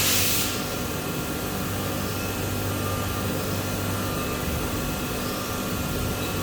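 CNC machine running in a machine shop: a steady mechanical noise with a low hum and faint thin whining tones, opening with a brief burst of hiss.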